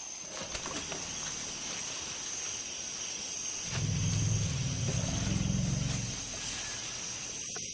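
Rainforest insects buzzing steadily at a high pitch. About four seconds in, a low rumble rises, lasts a couple of seconds and fades: a Bornean elephant rumbling.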